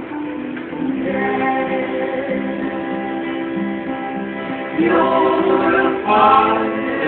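Live band music with guitar and singing, held notes throughout, getting louder as voices come in about five seconds in and again a second later. Recorded on a cellphone, so the sound is thin, with no high treble.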